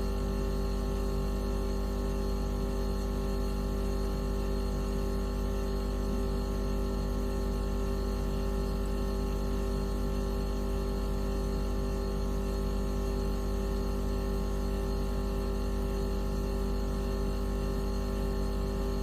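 Steady electronic tone drone of many held pitches over a strong low hum, played as a mosquito-repellent sound.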